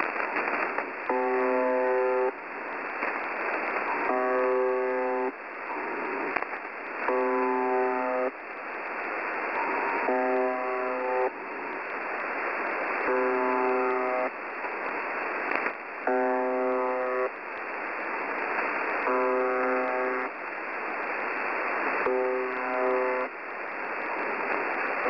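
Shortwave radio signal of the UVB-76 "Buzzer" station: a harsh, low buzz tone a little over a second long, repeating about every three seconds over steady radio static.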